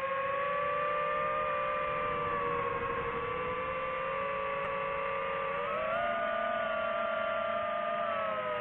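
DJI FPV drone's motors and propellers running with a steady whine that drifts in pitch, stepping up about six seconds in and easing down near the end.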